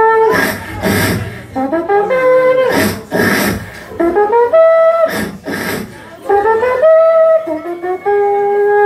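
Live human beatboxing: a voice holds long pitched notes that slide up from one note to the next, cut through by loud hissing snare-like hits every second or two. A long steady note is held near the end.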